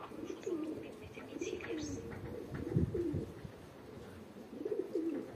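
Domestic pigeons cooing over and over, Baku pigeons by the keeper's loft, with a couple of low thumps about halfway through.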